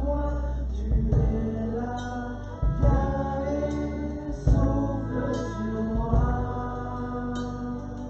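Choral singing with instrumental backing and a steady deep bass: sustained chords changing about every second or two.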